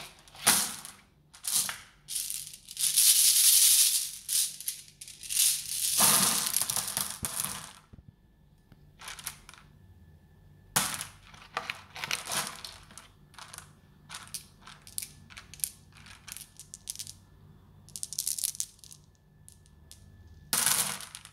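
Glass marbles rattling and clinking together in a plastic bowl as they are stirred and picked out by hand. Longer rattling runs come in the first eight seconds, then scattered single clicks.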